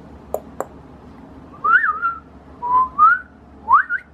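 A person whistling three short notes that slide upward in pitch, after two sharp clicks in the first second.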